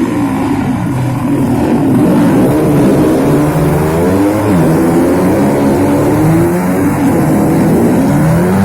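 Racing motorcycle engines warming up, revved repeatedly so the pitch rises and falls over and over.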